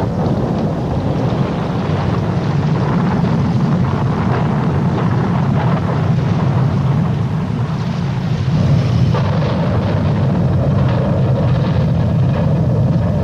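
Boat under way: a steady motor and water rumble, with wind buffeting the microphone.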